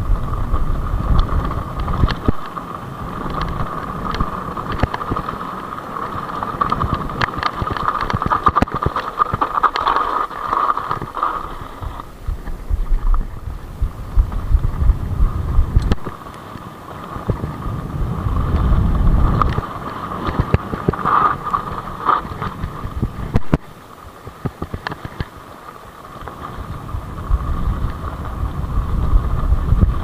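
Hardtail mountain bike riding fast down a dirt forest track: tyres rumbling over the ground and wind buffeting the microphone, rising and falling in gusts, with rattling clicks from the bike over bumps. A steady high-pitched whine runs underneath.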